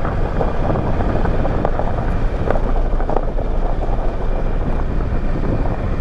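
Kawasaki Versys 650's parallel-twin engine running as the motorcycle rolls over loose steel-mill slag gravel, with scattered crunches and clicks from the stones under the tyres. Wind buffets the microphone.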